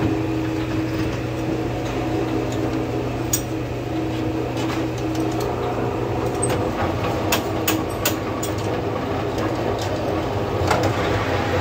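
Steady workshop machinery hum. Over it come sharp metal clinks: once about three seconds in, several around seven to eight seconds, and once near the end. They come from a long steel hydraulic cylinder rod being set into a lathe's four-jaw chuck and the jaws being tightened with a chuck key.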